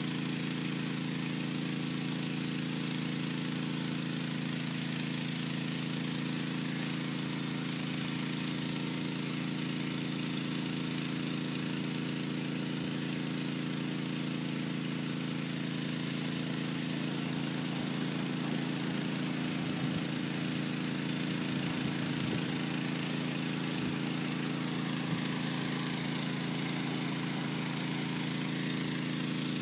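Sewer jetter's engine running steadily, driving the high-pressure water jet that is clearing a clogged sewer line.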